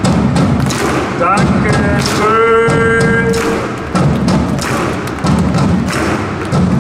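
Music with a slow, steady drum beat, about one beat a second. Near the middle a pitched note glides up and then is held for about a second and a half.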